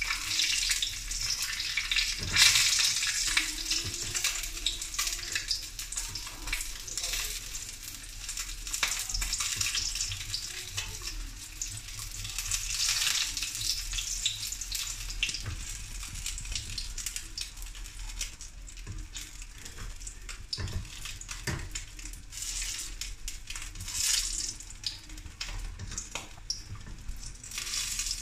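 A threadfin fish fillet sizzling steadily in hot oil in a wok, with a few sharp taps of a metal spatula against the pan.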